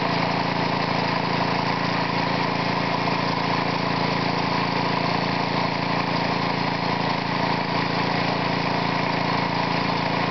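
Homemade air compressor built from a Briggs & Stratton single-cylinder engine, fitted with a high-compression cylinder head and a light-sprung inlet valve opened by suction alone, running steadily as it pumps air into its tank. The drone stays even throughout, with no change in speed.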